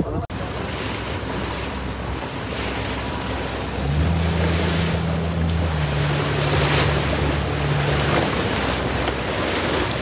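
Wind buffeting the microphone over choppy sea water from a boat. A low boat-engine hum comes in about four seconds in and stops about eight seconds in.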